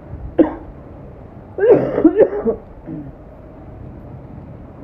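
A person coughs once, then coughs and clears their throat for about a second, over a steady hiss of falling rain.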